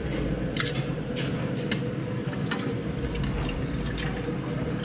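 Metal serving tongs and a ladle clinking against bowls and the steel pot while bakso is dished up: a handful of sharp clicks over a steady watery background noise.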